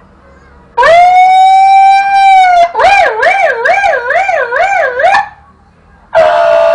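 A boy imitating a police siren with his voice: a long held note that rises and then levels off, then a wailing up-and-down warble about twice a second. Another held note starts near the end.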